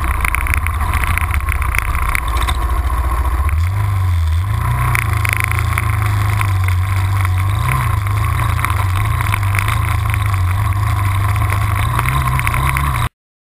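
Yamaha ATV engine running close to the microphone while riding over rough, wet ground. The engine's pitch rises about four seconds in and then wavers with the throttle; the sound cuts off abruptly near the end.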